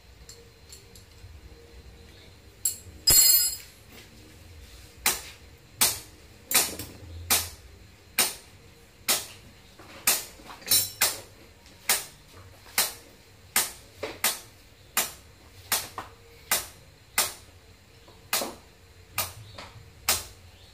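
Hand-tool work on a motorcycle: a steady series of sharp taps, roughly one a second, after a louder clatter about three seconds in.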